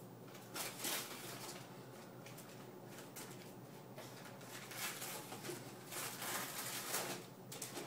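Wrapping paper on a gift rustling and tearing in short, faint crackles as it is unwrapped by hand.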